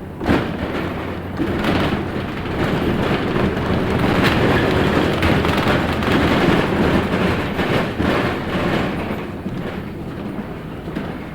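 Inside a LiAZ 6213.65 articulated city bus on the move: steady engine drone and road noise, growing louder through the middle and easing near the end, with a sharp knock just after the start.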